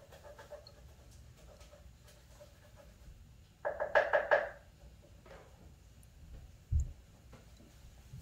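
Small glass essential-oil bottles clinking together several times in quick succession about four seconds in, as the upturned dropper bottle is lifted from the mouth of the small bottle, with a brief ring. A single dull thump follows near the end.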